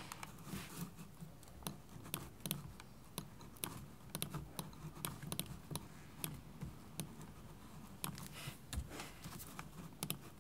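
Faint, irregular light clicks and taps of a computer keyboard and mouse being worked, a few a second, over a faint steady low hum.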